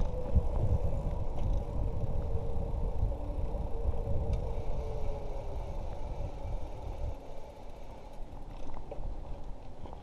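Wind buffeting the microphone of a moving bicycle rider, a gusty low rumble with tyre noise underneath; the buffeting eases about seven seconds in. A faint steady hum slowly drops in pitch through the first half.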